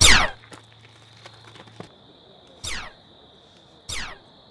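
A sci-fi ray-gun zap: a loud, fast falling-pitch sweep right at the start. Two shorter, quieter falling sweeps follow, over a steady thin high whine.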